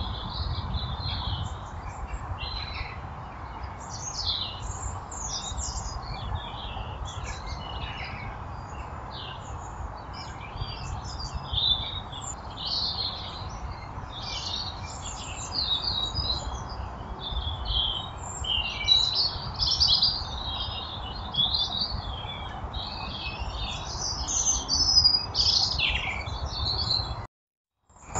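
Small garden birds chirping and twittering, many short calls overlapping, over a steady background hiss and hum. The sound cuts out for under a second near the end.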